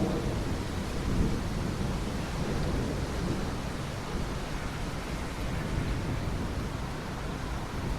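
Steady rain falling, with a thunderclap's low rumble rolling on over the first few seconds and fading away.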